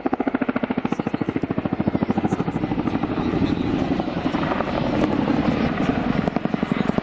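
Boeing Chinook HC4 tandem-rotor helicopter flying overhead, its two three-bladed rotors beating with a fast, regular blade slap of about eleven beats a second. The beat blurs in the middle and sharpens again near the end.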